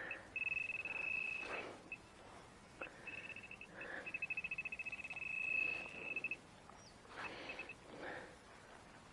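High-pitched electronic metal-detector tone, buzzing in rapid pulses, in four bursts: one of about a second, two short ones, and a longer one of about two seconds. The signal is from a large buried metal object, a heavy brass knob. Short rustling noises fall between the bursts.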